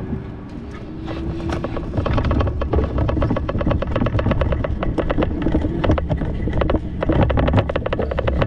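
Sound of a bicycle being ridden: wind rumbling on the microphone over a fast, uneven run of rattling clicks, louder from about two seconds in.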